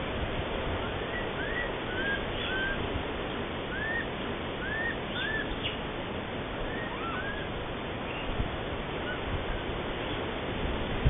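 Japanese macaques giving short coo calls, about ten brief notes that each rise and fall in pitch, clustered in the first seven seconds, over a steady background hiss.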